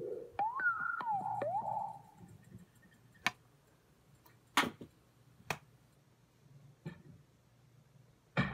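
A sliding pitched tone, falling then rising, with a few clicks, fades out about two seconds in. The rest is quiet apart from four sharp separate taps, from a hand knocking against the recording device.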